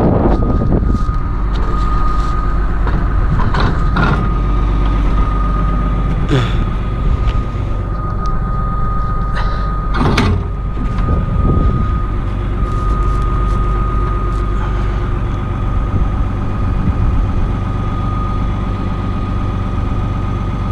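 Renault Ares tractor engine idling steadily with a thin, steady high whine over it, and several metal knocks and clanks from handling the round baler while a new roll of net wrap is loaded.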